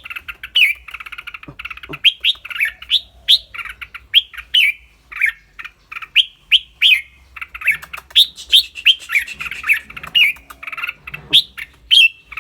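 Red-whiskered bulbul singing: a quick run of short, clear whistled notes that sweep up and down, mixed with rapid buzzy chattering calls near the start.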